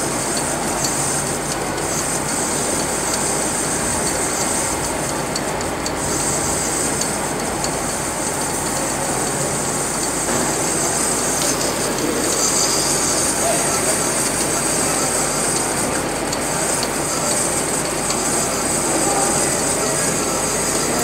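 Conventional metal lathe running under cut: the spindle and gearing make a steady machine noise while the tool turns a metal ring held in the chuck, with a hissing from the cut that swells and fades.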